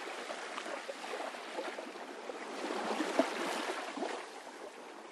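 Soft water sound, lapping and trickling with small crackles, swelling a little in the middle and fading near the end.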